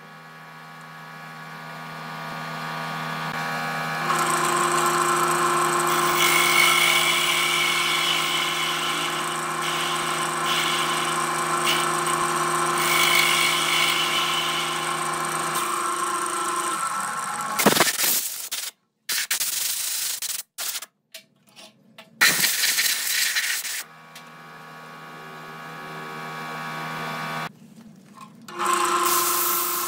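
Electric wood lathe running with a steady motor hum while a hand-held turning tool cuts the inside of a spinning wooden hollow vessel, a rough scraping hiss. Partway through, the sound breaks off abruptly several times with short silences, then the lathe hum and cutting return.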